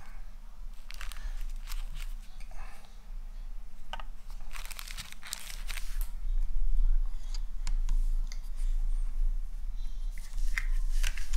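Plastic packaging crinkling and rustling in irregular bursts, with scattered light clicks and knocks as small unboxed camera parts are handled on a table.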